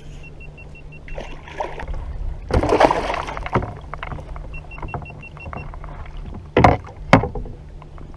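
Kayak on the water: splashing and sloshing, loudest about three seconds in, with two sharp knocks near the end.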